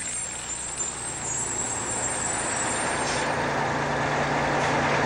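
Street traffic noise: a heavy vehicle's engine running with a steady low hum under a rushing noise that grows louder. A thin high whine fades out about three seconds in.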